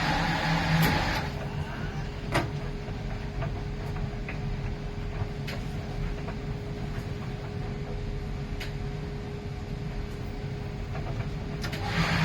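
Miele PW 6080 commercial washing machine in its wash cycle: the drum motor stops about a second in, leaving a steady faint hum with scattered clicks during the pause, and starts turning again near the end.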